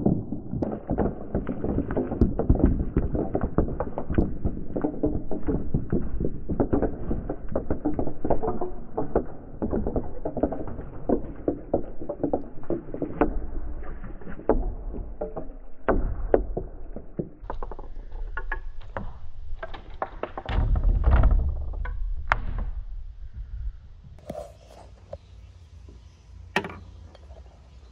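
Glass marbles rolling and clattering down wooden marble-run tracks: a dense rolling rumble full of clicks through the first two-thirds, thinning later to scattered clicks and knocks.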